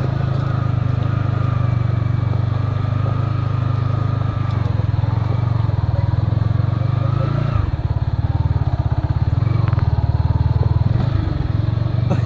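Engine and road noise of a vehicle being ridden along a rough road, under a heavy wind rumble on the microphone; the rumble turns into a rapid, uneven throbbing about seven and a half seconds in.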